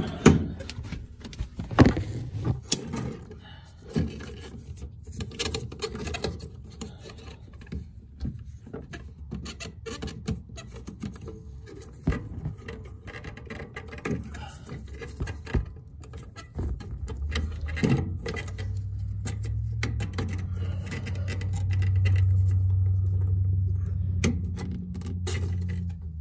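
Gloved hands rubbing, scraping and clicking against the plastic fuel pump module and its hose clips in the tank opening, with irregular knocks throughout. In the last third a low steady hum comes in and swells.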